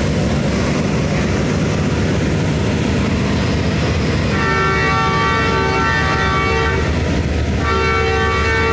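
A multi-tone train horn sounds a long blast from about halfway through, breaks off for a moment, then sounds again near the end. Beneath it runs the steady low rumble of the train's power van generators.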